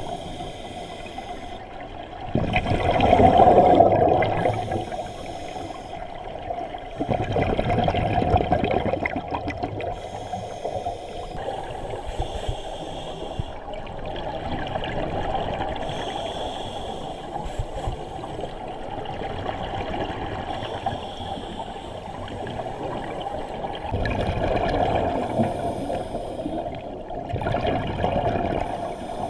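Scuba diver breathing underwater through a regulator: bubbling surges of exhaled air several seconds apart, the loudest about three seconds in, over a steady underwater hiss.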